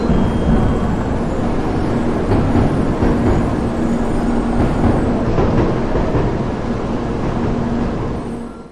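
Train noise on a railway station platform: a steady rumble with a faint hum that comes and goes, fading out quickly near the end.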